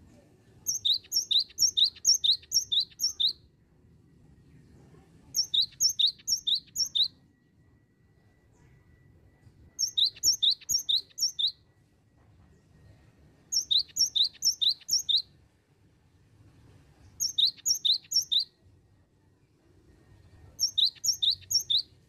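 Cinereous tit (gelatik batu) singing: six bursts of quick, repeated high whistled notes, five to seven notes to a burst, coming about every three and a half seconds over a faint low rumble.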